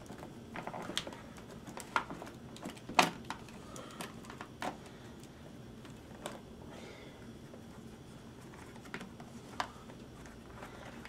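Scattered small clicks and clatters of metal bits and tools being handled in a plastic tool case, irregular, the sharpest about three seconds in.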